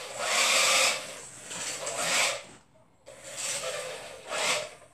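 A remote-control toy truck's small electric motor and gears whir as it drives, in two spurts: the first lasts about two and a half seconds, and the second, after a brief pause, lasts about a second and a half.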